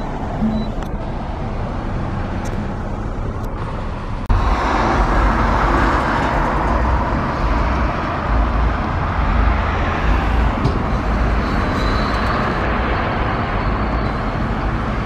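Street traffic: car engines running and tyres on the road as cars cruise past. It is heard first from inside a car, then changes suddenly about four seconds in to a louder, closer traffic sound with a deep engine rumble.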